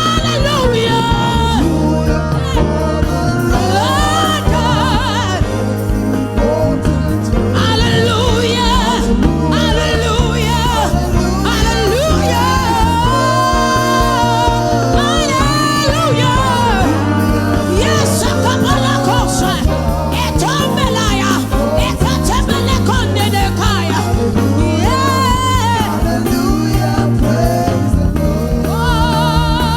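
Gospel worship music: a solo voice sings gliding, wavering melodic runs with no clear words over steady held backing chords.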